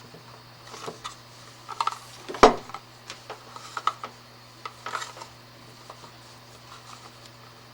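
Small hand tool clicking and scraping against a power cord as its outer jacket is cut open to reach the wires inside, a scattered run of light clicks with one sharp, louder click about two and a half seconds in. A steady low hum runs underneath.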